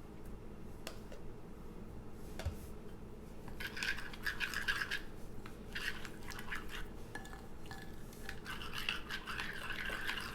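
Stirring a thick flaxseed and niger seed mixture in a bowl: scratchy scraping and rubbing in two spells, with a few light taps at the start.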